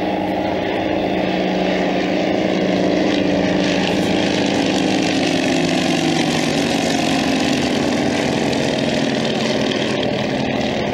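Alvis Leonides radial piston engines of a Percival Pembroke and a Piston Provost flying past low together: a loud, steady propeller drone whose pitch dips slightly around the middle as they go by.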